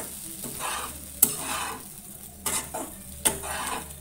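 A spatula stirring and turning poha (flattened rice) in a frying pan on a low gas flame. Scraping strokes are broken by a few sharp knocks of the spatula against the pan.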